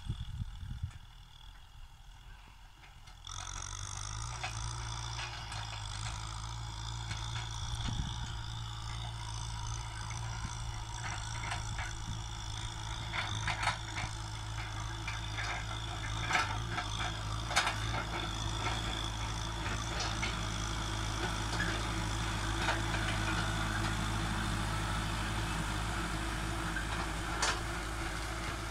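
Farm tractor's diesel engine running steadily under load as it pulls a disc plough through dry soil, with scattered knocks and clanks from the implement. The engine sound comes in louder and clearer about three seconds in.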